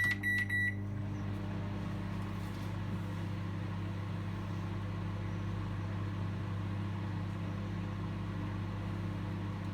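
Microwave oven keypad beeping a few times as it is set, then the microwave running with a steady hum and fan noise.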